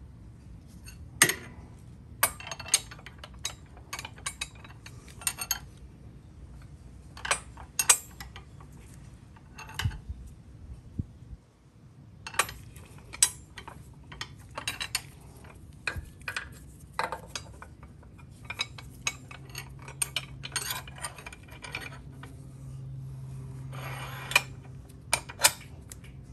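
Irregular metallic clinks and taps of a steel engine guard bar and its mounting hardware being handled and fitted against a motorcycle frame mount.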